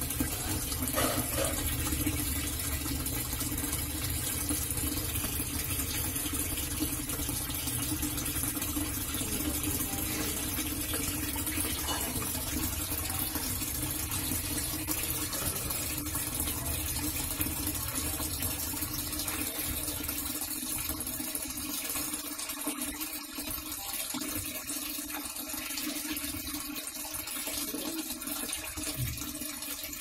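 National NA-733H top-load washing machine filling: a steady stream of water pouring from the inlet into the tub of clothes, with a low hum under it that fades about twenty seconds in.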